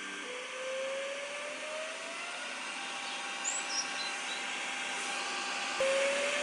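3D printer's filament-feed stepper motor running with a steady whine and a slowly rising tone as it strains to pull the filament through; the filament seems stuck and the motor keeps skipping.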